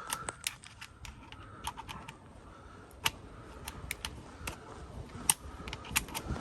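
Scattered sharp clicks and light taps, irregular and a few a second, from hands working a tool and small metal and plastic hardware; no power tool is running.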